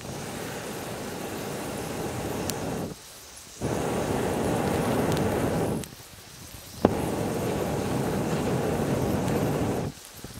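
Campfire being blown on through a fire-blowing pipe: three long puffs of rushing air, each about two to three seconds, with short pauses between for breath, and a sharp pop from the fire about two-thirds through.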